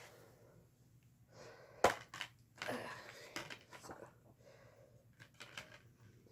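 A 4K Blu-ray steelbook case being handled: one sharp click about two seconds in, then a brief rustle and a few lighter clicks and taps.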